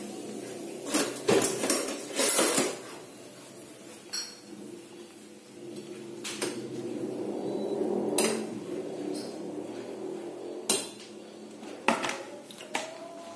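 Clinks and knocks of a stainless steel cooking pot and kitchenware as spinach is pushed into the pot by hand: a quick cluster in the first few seconds, then single clinks every second or two, over a steady low hum.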